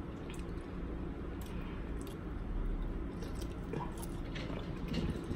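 Close-miked eating: wet chewing and squishing of butter-sauced seafood, with a few faint clicks.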